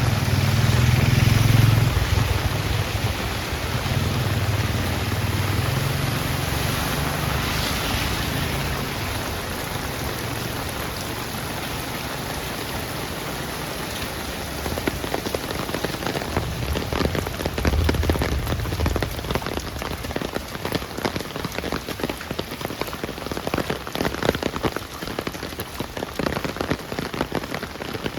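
Heavy rain pouring steadily. A low rumble swells at the start and fades out by about ten seconds in. In the second half many separate heavy drops strike close by.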